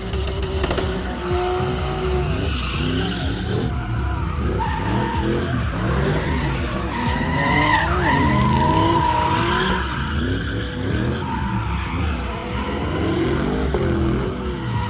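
A Nissan 200SX and a Mercedes 190 drift car in a tandem drift run: engines revving up and down hard while the tyres squeal through long slides, loudest about halfway through.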